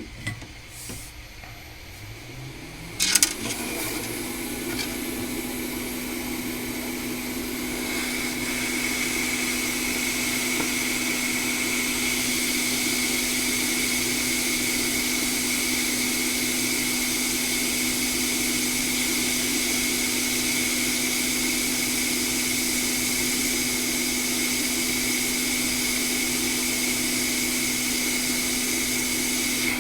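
Hot air rework station switching on with a click about three seconds in, its fan spinning up in a rising whine and then blowing steadily with a hum and airy hiss, which grows a little louder about eight seconds in. It is heating a chip to desolder it from a logic board.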